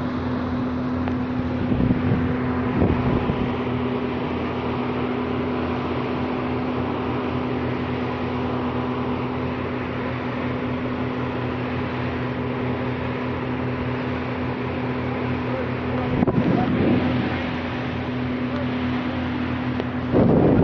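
Motorboat engine running steadily under way, a constant low drone, with the rush of wind and water around the hull. Brief louder bursts of noise come about two seconds in and again about sixteen seconds in.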